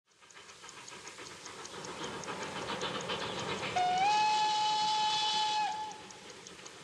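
Steam locomotive running with a rhythmic clatter of about five beats a second, growing louder. About four seconds in its steam whistle blows one long note, bending slightly up at the start and held for nearly two seconds.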